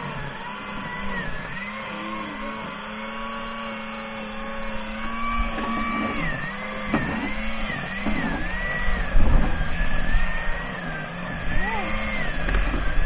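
A motor running steadily, its pitch wavering up and down. Low thumps and rumble come in during the second half.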